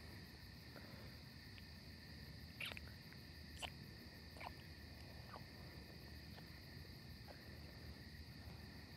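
Faint night ambience of crickets chirping steadily, with a few brief sharp chirps or clicks between about three and five seconds in.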